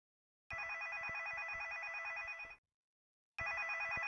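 Mobile phone ringing with an electronic ringtone: two rings of about two seconds each with a short gap, each a fast warbling trill.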